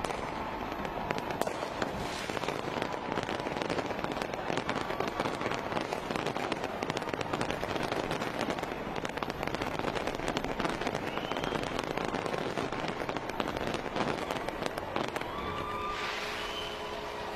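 Fireworks display going off: a dense, continuous barrage of pops, bangs and crackle. Near the end the bangs thin out, leaving a hiss and a few steady tones.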